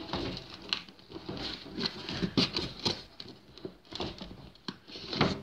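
Rubber water hose being pushed and worked through a hole in the plastic detergent-drawer housing of a washing machine: irregular scraping, rubbing and light knocks of rubber against plastic.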